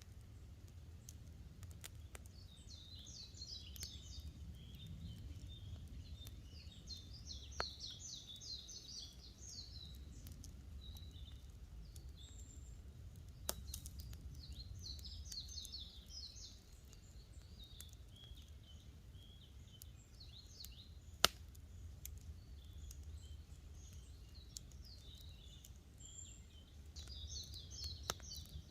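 Small songbirds singing repeated quick, rattling phrases every few seconds over a wood campfire, which hisses low and gives a few sharp pops, the loudest about three-quarters of the way through.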